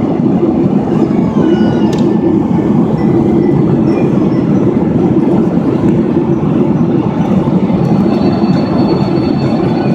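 Jet airliner cabin noise in flight: a steady, loud, even roar heard from a window seat.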